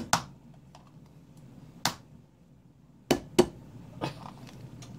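Sharp knocks against a ceramic mixing bowl: single knocks near the start and about two seconds in, then two quick taps just after three seconds as an egg is rapped on the bowl's rim to crack it.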